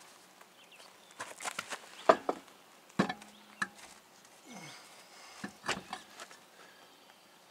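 Scattered knocks and clicks as an alloy wheel and tyre are shifted and fitted onto a rear hub. The loudest knocks come about two and three seconds in, the second with a brief metallic ring, and lighter taps and scuffs come before and after.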